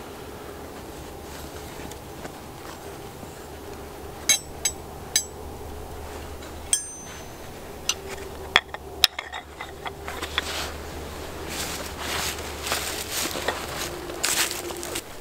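Small metal hand tools clinking as they are set down on a canvas tool roll on a wooden plank: several sharp clicks, one ringing briefly. Toward the end, a rustling as a fleece hide is laid down.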